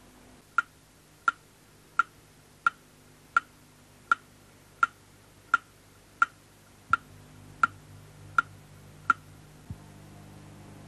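A clock ticking steadily, about three ticks every two seconds; the ticks stop near the end.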